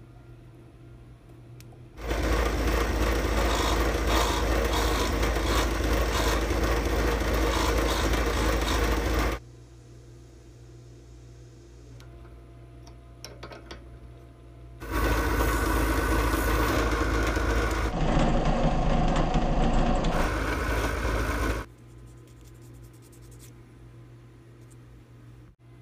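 Benchtop drill press motor running steadily twice for about seven seconds each, starting about two seconds in and again about fifteen seconds in, first with a tape-marked bit for drilling wood, then spinning a wooden bead mounted on a screw in the chuck. Between the runs a low hum and a few light clicks are heard.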